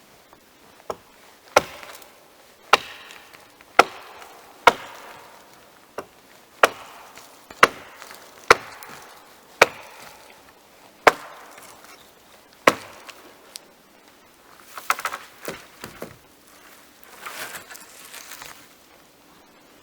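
Axe chopping wood, about a dozen sharp strikes roughly a second apart. It is followed by a spell of lighter knocking and clattering of wood pieces.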